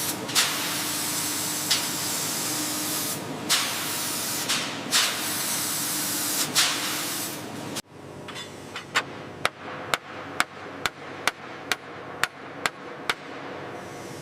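Factory metalworking sounds: a steady hiss with a few knocks, which cuts off suddenly about two-thirds of the way in and gives way to evenly spaced hammer-like metal strikes, about two a second, that die away near the end.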